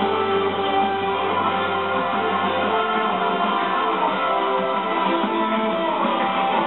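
Background music led by guitar, playing at a steady level.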